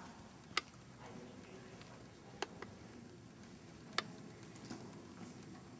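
A horse being ridden at the walk in a sand arena, faint, with four sharp clicks, two of them in quick succession.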